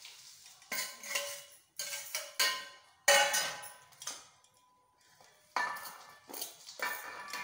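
Steel spoon scraping and clinking against metal plates and a large metal bowl as dry ingredients are tipped in, with about seven sharp clanks that ring briefly.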